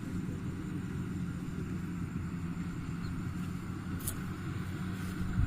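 Rice combine harvester's diesel engine and threshing machinery running steadily, a constant low hum. There is a brief click about four seconds in.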